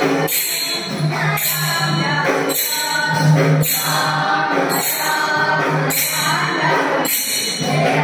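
Kunita bhajane devotional music: a group singing a chant over a steady low drone. Tambourine and small hand-cymbal jingles mark the beat about once a second.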